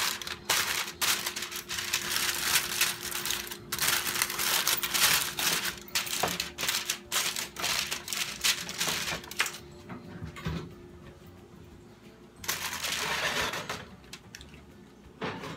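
Aluminium foil crinkling and crackling as it is pressed and crimped down over the rim of a metal roasting pan, for about the first nine seconds. A brief burst of rustling noise follows about twelve seconds in.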